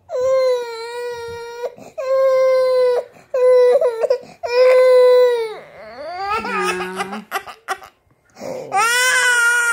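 Baby crying: a string of long, level-pitched cries with short breaks for breath, then after a brief pause a higher-pitched wail near the end.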